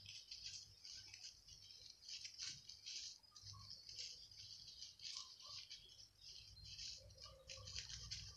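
Faint rustling and crinkling of a paper towel crumpled and shaped by hand around a toothpick into a flower: many short, irregular crackles.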